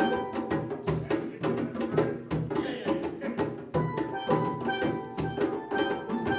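Live calypso (kaiso) music: steelpan notes ringing over a steady, evenly struck drum and hand-percussion rhythm.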